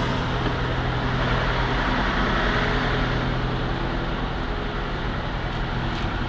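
Semi-truck's diesel engine idling steadily: an even low hum under a wash of noise.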